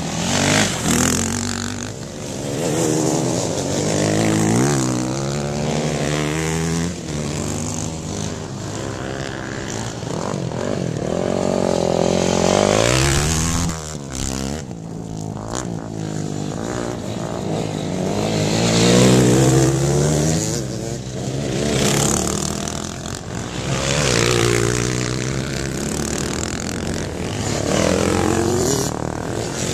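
Dirt bike engines revving and shifting as bikes race through a dirt corner one after another, the pitch rising and falling with each pass. The loudest passes come about 12 and 19 seconds in.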